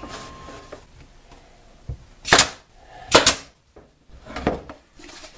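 Sharp knocks of wooden pieces handled on a wooden workbench: two loud ones about a second apart near the middle, then a softer one.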